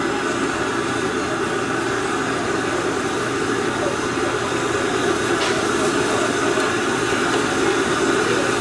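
Gas burner of a stall stove running under a pan of water, making a steady rushing noise, with one faint tick about five seconds in.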